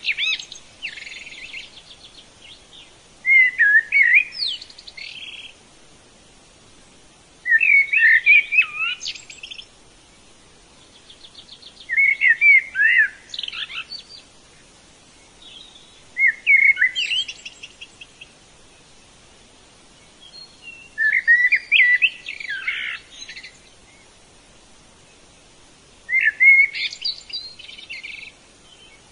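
A songbird singing: the same phrase of quick chirps, whistles and trills, about two seconds long, repeated about every four to five seconds.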